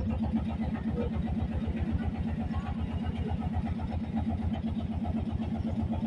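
Boat engine running steadily with a rapid, even chugging, heard from on board.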